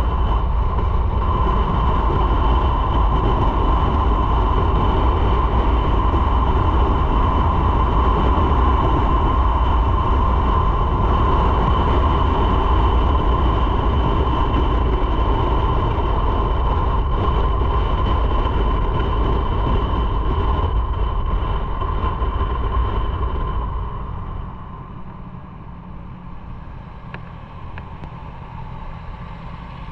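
Motorcycle riding at speed: a loud, steady roar of engine, wind and tyres with a faint steady whine. It becomes noticeably quieter about 24 seconds in.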